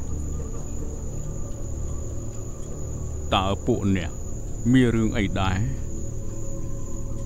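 Crickets trilling steadily over a low drone, night ambience, broken by two short bursts of a voice with sweeping pitch about three and five seconds in.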